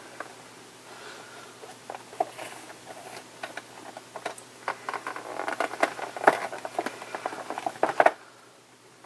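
Cardboard toy box being handled and the tape on its side picked at and peeled: a run of small crackles and clicks, sparse at first and much busier in the second half, stopping suddenly about a second before the end.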